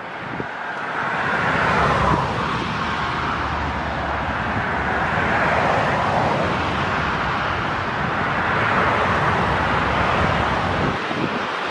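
Four-engine Airbus A380's jet engines on final approach, a loud steady roar that builds about a second in as the aircraft comes closer. The hiss in it sweeps slowly up and down in pitch over a low rumble, easing a little near the end.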